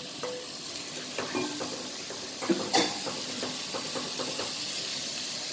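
Raw chicken pieces sizzling as they go into hot oil with fried onions and chillies in a pot, a steady hiss. Utensils knock against the pot a few times, loudest twice about halfway through, as the meat is tipped in and stirred.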